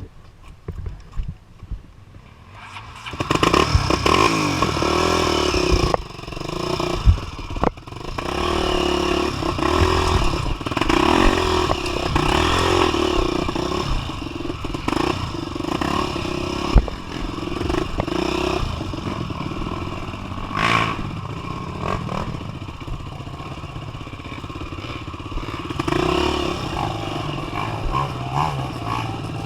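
Honda Tornado 250 dirt bike's single-cylinder four-stroke engine running hard on a trail, the revs rising and falling with the throttle, with scattered clattering knocks. The engine comes in loud about three seconds in after a quieter start.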